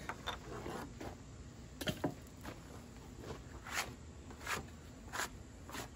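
A handful of short clicks and knocks as small pieces of wood and hand tools are handled and set down on a table. The loudest are a close pair about two seconds in.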